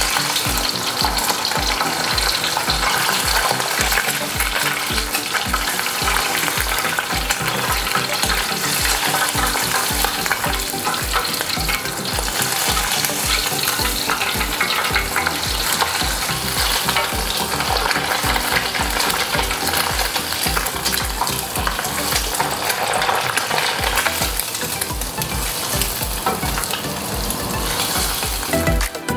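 Hot oil sizzling steadily as a fingermark bream fillet, scales left on, deep-fries in a pot while hot oil is spooned over it.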